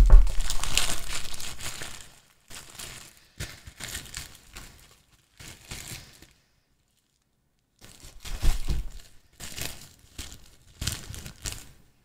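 Packaging crinkling and rustling in bursts as accessories are handled and pulled out of a box. It is loudest in the first two seconds, with a quiet gap of about two seconds after the middle.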